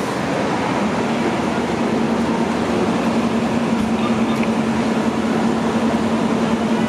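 Diesel engines of parked fire apparatus running steadily, with a steady hum that comes in about a second in and holds.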